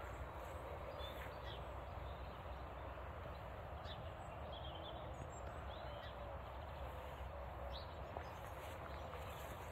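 Steady outdoor background noise with a low rumble, and a few faint, short bird chirps scattered through it.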